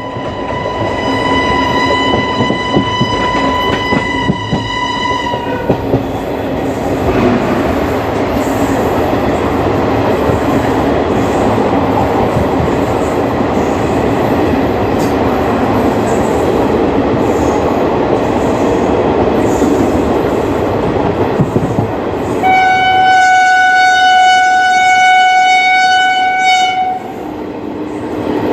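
WAP4 electric locomotive horn sounding two long blasts. The first is already sounding at the start and lasts about five seconds. The second is lower in pitch and lasts about four and a half seconds near the end. In between is the steady rumble and clatter of an ICF passenger coach running over the track.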